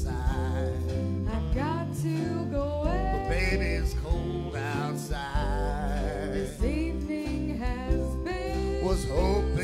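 Live band music: a woman sings with vibrato over electric piano, drums and guitar.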